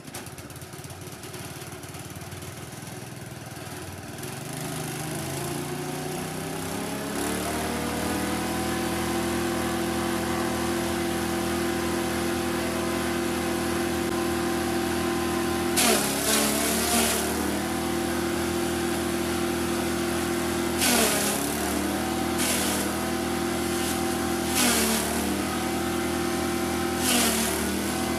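Small 6.5 HP single-cylinder engine driving a multifunction forage chopper, speeding up over the first several seconds to a steady high-speed run. In the second half it briefly bogs down and recovers four times, each time with a burst of crunching as corn stalks are fed into the cutter blades.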